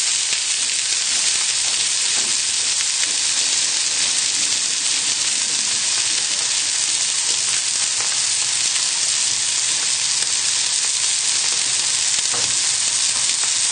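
Cod fillets frying skin-side down in a very hot oiled pan: a steady, really loud sizzle. The loud sizzle is the sign that the pan is hot enough to crisp the skin and keep the fish from sticking.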